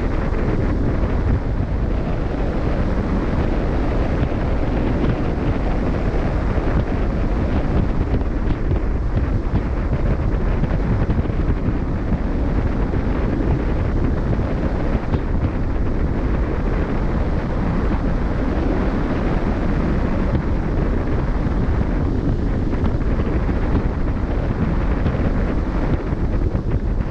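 Steady wind buffeting the microphone, a continuous low rumble, over the rush of open sea passing a moving cruise ship.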